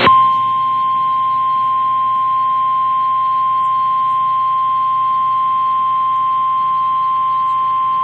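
Emergency Alert System attention signal: a single steady alert tone at about 1050 Hz, the NOAA Weather Radio warning-alarm tone, held unbroken. It signals that an emergency warning, here a flash flood warning, is about to be read.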